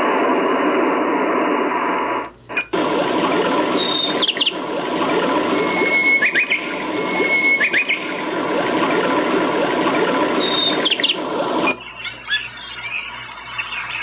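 Built-in nature-sound tracks playing from the small speaker of a Weirdbeast ocean-wave projector night light. A steady noisy track with chirps over it cuts out for a moment about two seconds in, and a different track with repeated short chirps starts. Near the end it changes again to a thinner track with scattered chirps.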